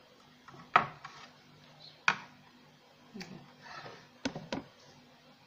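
A few sharp knocks and clinks of a ceramic plate being handled and set down on a kitchen counter, two of them close together near the end, with soft handling noise between.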